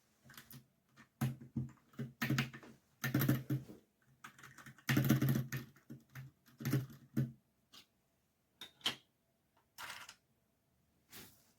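Typing on a Dierya DK61se 60% mechanical keyboard with red linear switches: irregular flurries of key strokes, densest in the first half and thinning to a few scattered strokes near the end.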